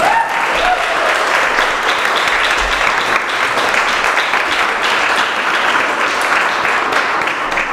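Audience applauding, a steady clapping that holds at the same level throughout.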